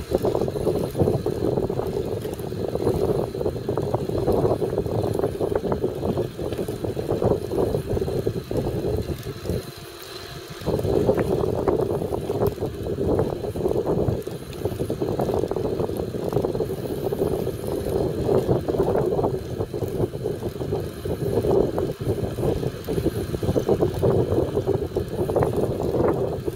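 Wind buffeting the microphone of a camera riding on a moving bicycle, a rough, fluctuating rumble that drops away briefly about ten seconds in.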